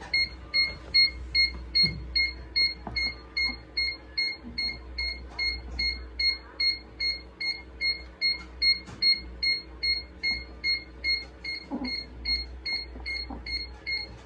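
Electronic beeper on a small egg incubator's controller sounding in quick, even, high beeps, about three a second, without pause, over a low steady hum. A few faint clicks from eggs being handled come through.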